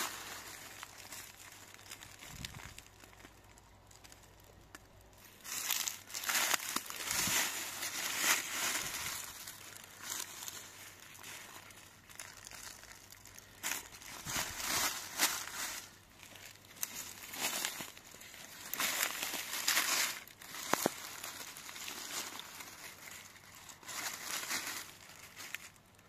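Dry fallen leaves and twigs rustling and crackling in irregular bursts as a hand digs through the leaf litter and pulls up mushrooms. It is fainter for the first few seconds and busier after that.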